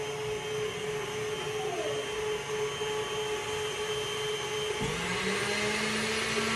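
Stand mixer motor running steadily as it whips egg whites toward stiff peaks, a constant whine. About five seconds in, a second, lower motor tone starts, rises briefly and holds steady, and the whirring turns brighter.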